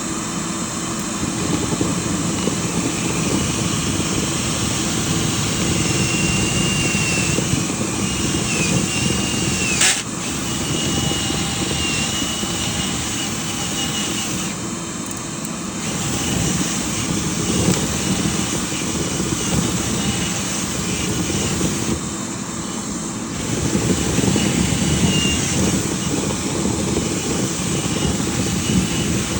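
Steady rush of air from a powered dryer-vent cleaning machine running, with a faint wavering high whine and a single sharp click about ten seconds in.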